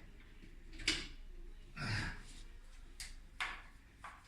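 Handling noises: a sharp knock about a second in, a brief rustle around two seconds, and two more clicks or knocks a little after three seconds.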